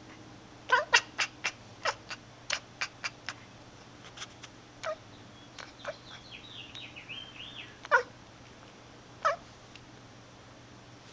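A tabby-and-white house cat chirping and chattering at something outside the window. There is a quick run of about ten short, clipped chirps in the first few seconds, a soft high warbling trill in the middle, then two louder chirps that fall in pitch near the end.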